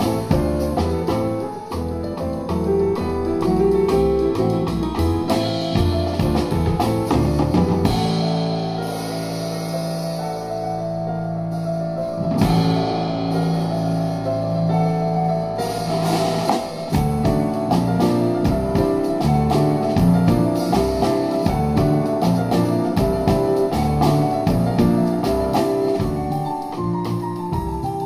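A jazz piano trio playing live: grand piano, upright double bass and drum kit. About eight seconds in, the playing thins to held chords without the low bass notes, then it becomes busy again around sixteen seconds.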